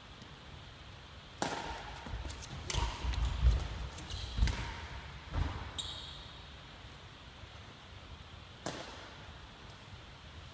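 Badminton rally: sharp cracks of rackets hitting a shuttlecock, several over the first half and one more near the end, with heavy thuds of footsteps on a wooden court floor and a brief shoe squeak around six seconds in.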